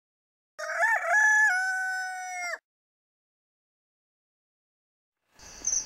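A rooster crowing once, about two seconds long, starting about half a second in: a short broken opening, then a long held note.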